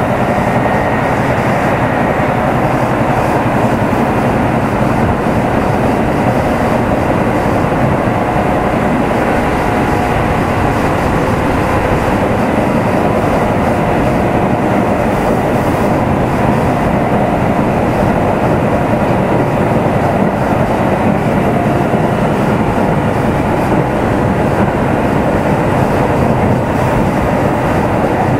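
Kintetsu 2800 series electric train running steadily, heard in motor car Mo 2852: traction motor and wheel-on-rail running noise.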